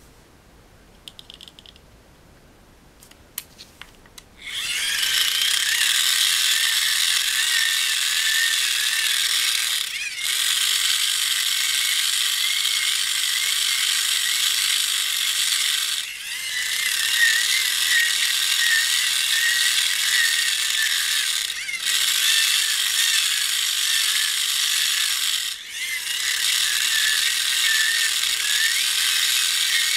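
Hand-cranked generator made from a small geared DC motor, its gearbox whirring steadily as the crank is turned. The whirring starts about four seconds in, after a few light clicks, and drops out briefly four times.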